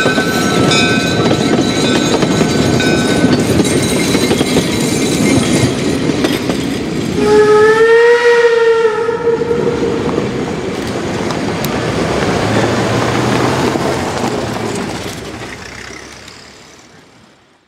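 Steam train of the two-foot-gauge Wiscasset, Waterville & Farmington Railway, locomotive No. 9, rolling past: a steady rumble and clatter of the cars, with thin squealing tones in the first few seconds. About seven seconds in comes a single steam whistle blast of about two seconds, rising slightly in pitch and then falling. Then the train sound fades away.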